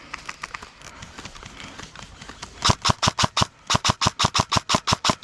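Airsoft gun firing rapid, evenly spaced shots, about six or seven a second. The shots are faint at first and much louder and closer from a little past halfway.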